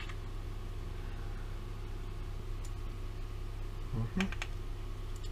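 Steady low hum of room background, with a sharp click at the start and a few faint clicks about four seconds in from small wire spade terminals being handled on the back of a motorcycle dash panel.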